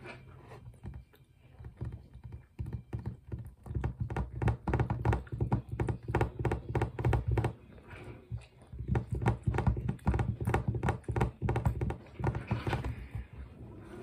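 Fingers drumming fast on a tabletop: a rapid run of taps and thunks in two long spells, with a short pause about halfway.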